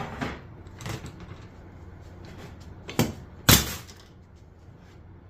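Tin snips notching the corners of sheet metal: a few light snips, then two sharp metallic snaps about half a second apart a little past halfway, the second the loudest.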